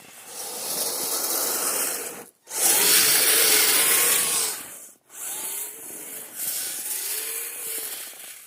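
Electric RC snowcats (Kyosho Blizzard) running their tracks through deep snow: a churning, scraping noise in three bursts of throttle, with a faint motor whine rising and falling. The middle burst is the loudest.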